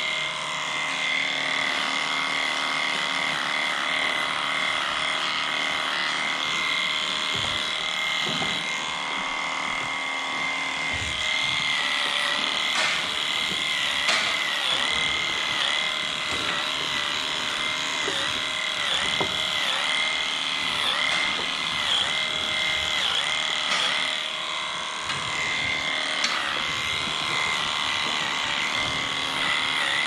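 Electric angle grinder with a hoof-trimming disc running steadily on a cow's hoof. Its high whine dips briefly in pitch again and again as the disc bites into the horn.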